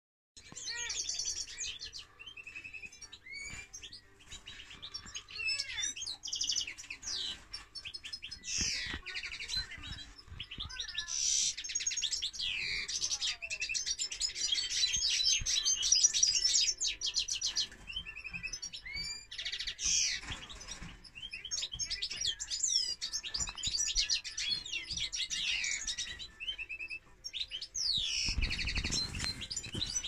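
Caged canary and European goldfinch singing: long, fast songs of trills, chirps and rising and falling whistles, with short pauses.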